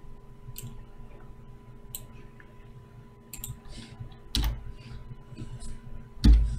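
Computer keyboard keystrokes and clicks, sparse and irregular, with two louder thumps about four and a half and six seconds in.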